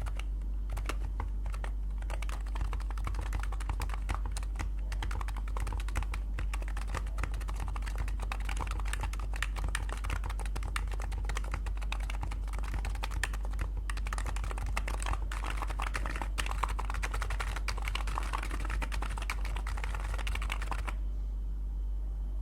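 Rapid, continuous typing on a custom Rule60 V3 keyboard fitted with Topre electro-capacitive switches, the key strokes coming too fast to count, until it stops about a second before the end. A steady low hum runs underneath.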